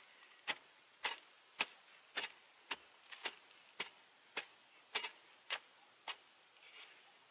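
Digging spade (เสียม) chopping into the ground again and again to dig a planting hole, about two sharp strikes a second, with the strikes stopping near the end.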